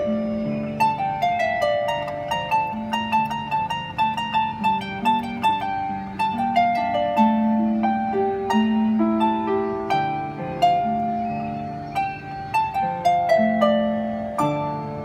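A Celtic harp played solo, plucking an Argentine zamba. The melody runs over a lower bass line, and each plucked note rings and fades.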